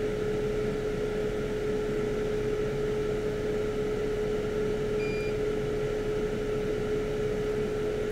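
Steady hum of electrical bench equipment with a constant mid-pitched tone, and a single short high beep about five seconds in.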